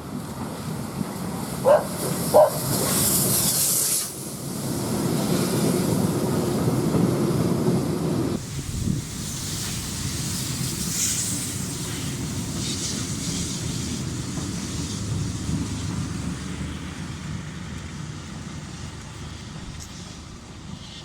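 TKt48 steam tank locomotive and its train running past. Two short high squeaks come about two seconds in, followed by a burst of steam hiss, then the heavy rumble of the train, which settles and slowly fades toward the end.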